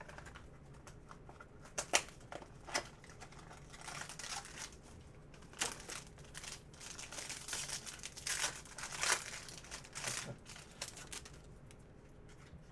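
A trading-card pack wrapper being torn open and handled: irregular sharp crackles, then a denser run of crinkling through the middle.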